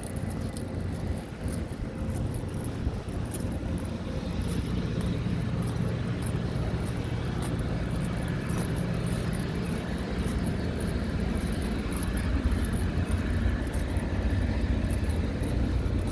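A car driving: a steady low rumble that grows a little louder in the second half, with irregular faint clicks high up.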